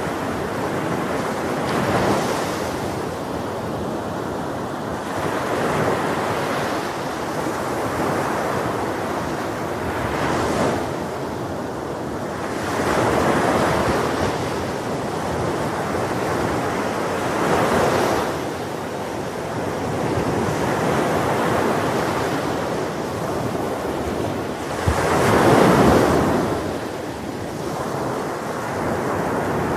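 Ocean waves breaking on a beach, surf washing in and out, with a swell every few seconds; the biggest wave breaks near the end. Wind buffets the microphone throughout.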